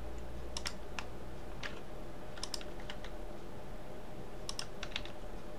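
Computer keyboard keys tapped now and then, scattered short clicks, some in quick pairs, over a faint steady hum.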